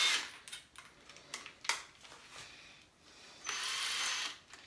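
Cordless drill's keyless chuck being worked by hand to swap in a screwdriver bit: a few scattered clicks, then a short whirr of under a second about three and a half seconds in.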